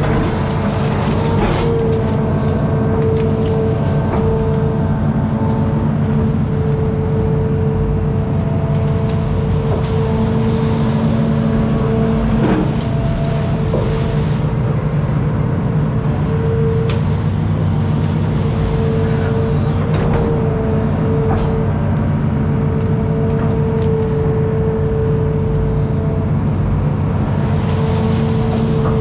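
Hitachi ZX210 amphibious excavator's diesel engine running steadily, with a whine that cuts in and out every few seconds and a few faint clicks.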